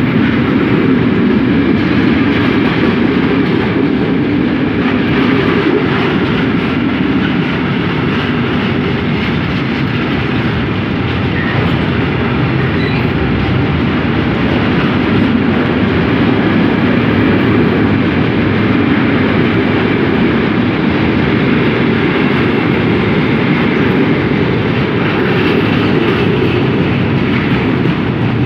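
Container wagons of an intermodal freight train rolling past along the platform: a steady, loud noise of wheels on rail.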